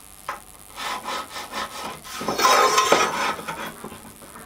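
Pencil scratching over wood as lines are drawn along a straightedge: several short strokes, then a longer, louder stroke a little past halfway.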